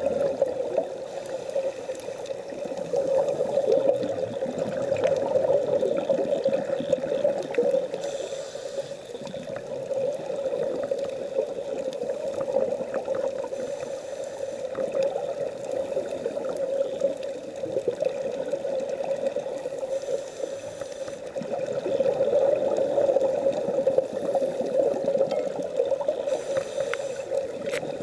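Underwater bubbling and muffled rushing from divers' scuba regulators as exhaled air bubbles up.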